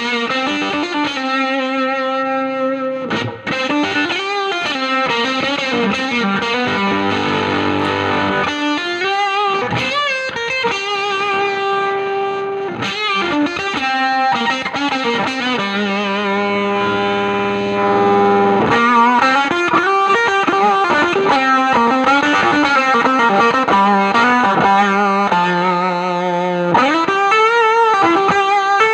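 Electric guitar, a Nash S-63 Strat-style with Lollar pickups, played through a Spruce Effects Volcanoes silicon/germanium hybrid fuzz pedal into a Milkman The Amp 100. It plays fuzzed single-note lead lines with string bends, vibrato and long held notes.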